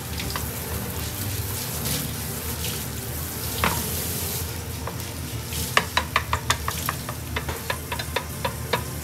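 Beaten egg sizzling in a square tamagoyaki pan over a gas flame while long cooking chopsticks stir the setting layer. From just past halfway the chopsticks click against the pan in quick, repeated taps.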